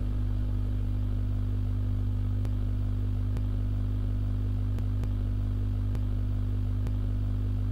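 Guitar amplifier humming with a steady low electrical hum as a cable sits plugged into its input, with a few faint ticks.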